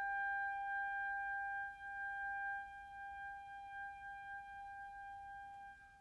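A single high note held steadily by an orchestral instrument in contemporary orchestral music, gradually growing quieter and dying away near the end.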